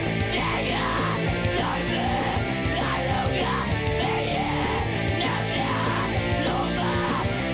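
Heavy rock song: a male lead vocal sings over distorted electric guitars, bass and drums, steady and loud throughout.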